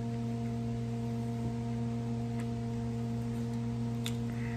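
Steady low hum, with a few faint clicks as fried chicken is pulled apart by hand near the end.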